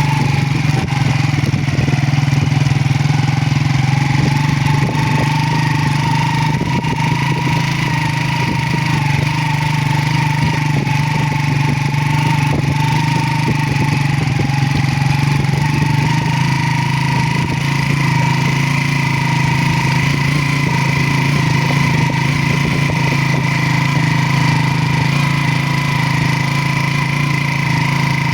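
Motorcycle engine running steadily at an even speed, with a higher whine that wavers slightly in pitch.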